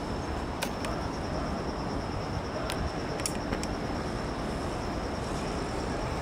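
Insects singing a steady, high chirring note over a low rumble of city traffic, with a few faint clicks.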